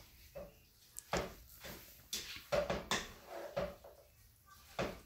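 Wooden spoon knocking and scraping against a pan as spaghetti is stirred and tossed: about ten irregular knocks.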